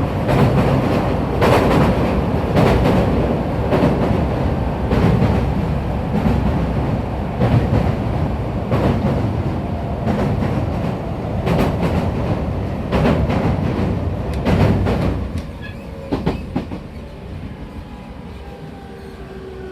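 JR 209 series electric commuter train running, heard from inside the car: the wheels click over rail joints about once every second or so. After about 15 seconds the running noise drops away as the train slows, and near the end faint falling tones from the inverter-driven motors can be heard while it brakes.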